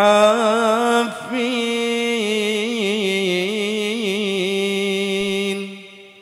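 Solo male voice singing a long, ornamented melismatic phrase of an Arabic devotional qasidah into a microphone. The notes waver and turn with no drum accompaniment, and the phrase fades out near the end.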